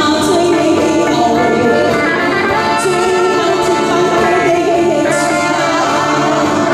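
Live band playing a song through a PA: woodwinds held over electric bass and keyboard, with a woman singing into a microphone.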